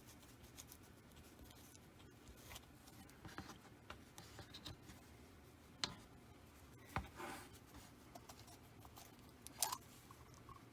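Faint handling noises at a workbench: a few light clicks and rustles of small objects being picked up and handled, the loudest a short scrape near the end.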